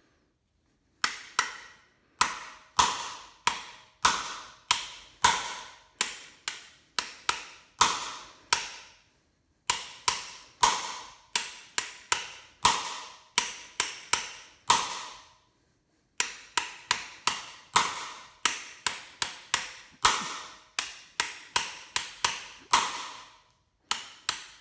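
Hammer blows on a camshaft bearing installer tool, driving a cam bearing into its bore in an Oldsmobile 350 V8 block. The sharp metallic strikes ring and come about two to three a second, in three runs with brief pauses between them.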